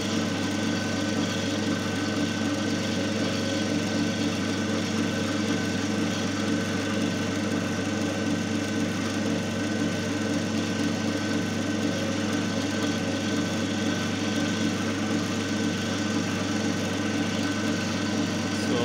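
Single-phase capacitor-run induction motor and the load machine coupled to its shaft running steadily under load at about 1444 rpm: an even electrical hum with a thin, steady high tone above it.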